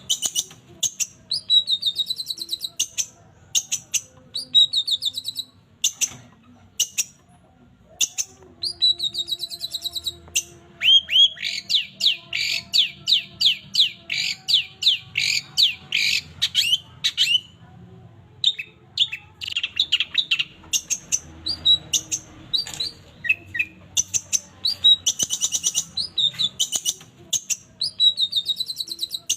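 Long-tailed shrike (cendet), a caged songbird known as a mimic, singing in repeated short, high chirping phrases. About eleven seconds in it breaks into a fast run of chirps that lasts several seconds before the short phrases return.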